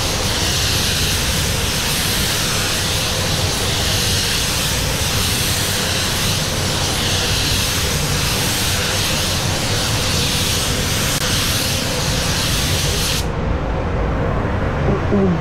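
Steady loud hiss of rushing air over a low rumble, with a faint steady hum. The hiss cuts off abruptly about 13 seconds in while the rumble goes on.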